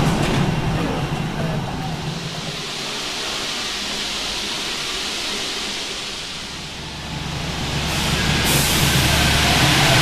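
RATP MP05 rubber-tyred metro train: a low hum that fades over the first couple of seconds, a quieter stretch of hiss, then from about seven seconds in a low drone and running noise that grow steadily louder.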